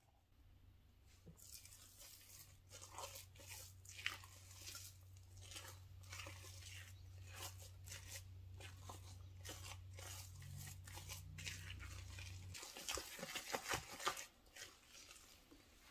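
Wooden spoon stirring and folding whipped cream into a thick peanut butter mixture in a glass bowl: soft, irregular scraping and squishing strokes, busiest just before the end. A steady low hum underneath cuts off about three quarters of the way through.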